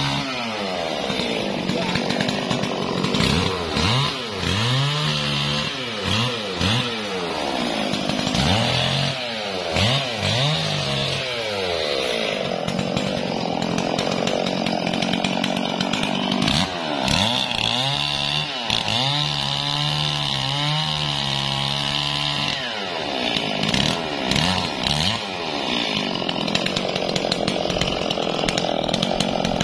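Two-stroke chainsaw running and cutting wood, its engine speed rising and dropping again and again as the chain bites into the logs and branches and is eased off.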